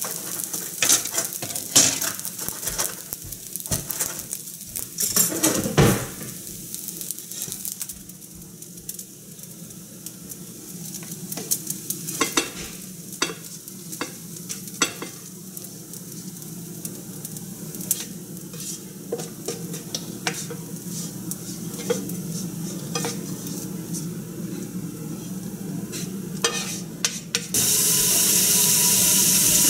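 A serving spoon scraping and knocking on a nonstick frying pan and bowls as fried rice is scooped out, in many short scrapes and taps. A loud, steady hiss starts near the end.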